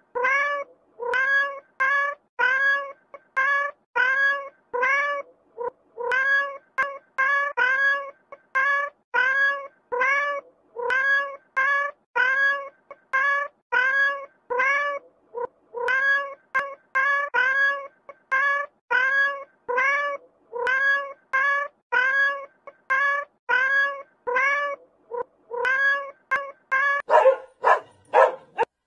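Cat meowing over and over in short, rising, near-identical meows, about two a second. Near the end, a puppy's yaps take over.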